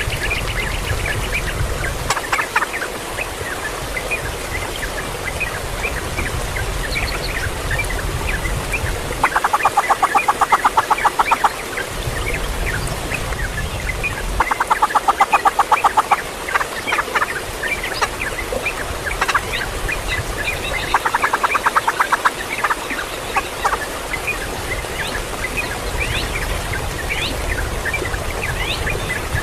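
Chickens clucking: three rapid runs of fast, even pulses, with scattered short high calls throughout.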